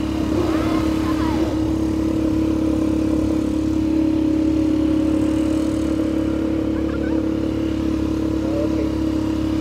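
ATV engine running with a steady, even drone while the quad is ridden along at a constant speed.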